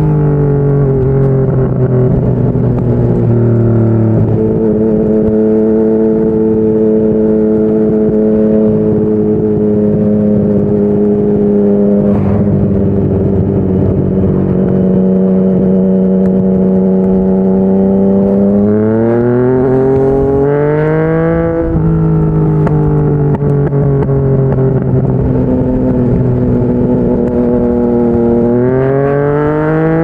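Yamaha MT-09 three-cylinder engine through a Yoshimura R55 slip-on exhaust, heard from the rider's seat while cruising. Its pitch steps down a few seconds in, then holds steady. About two-thirds of the way through it climbs under acceleration and drops sharply at an upshift, then it climbs again near the end.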